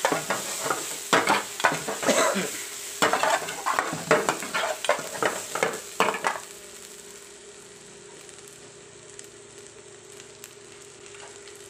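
Metal ladle scraping and stirring sliced onion, green chilli and garlic in hot oil in a kadai, with the oil sizzling. The stirring stops about six seconds in, leaving a quieter steady sizzle with a faint steady hum underneath.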